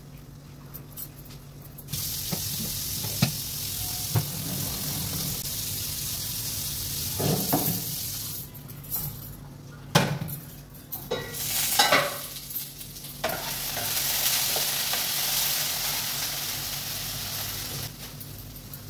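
Potatoes frying in oil in an iron kadai, a steady sizzle, with a spatula stirring and knocking against the pan now and then. The sizzle starts about two seconds in and drops away for a few seconds in the middle, with pot-and-lid clatter, before it comes back.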